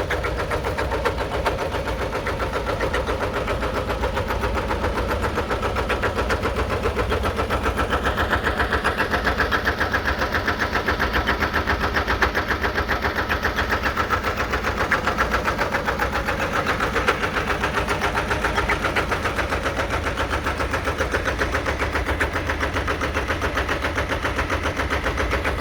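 A 1959 Porsche Diesel Junior's 822cc single-cylinder diesel engine running steadily under ploughing load with an even, rapid beat. It grows louder and brighter from about 8 seconds in, then eases off a little.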